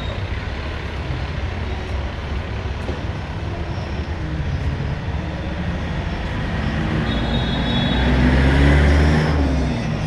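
Street traffic with engines running. A heavy vehicle passes close, its engine loudest about eight to nine seconds in, and its note drops as it goes by.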